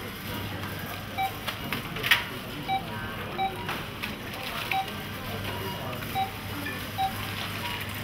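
Supermarket checkout barcode scanner giving short single beeps about six times as items are scanned, with the light clatter of goods being handled and set down over a steady low hum.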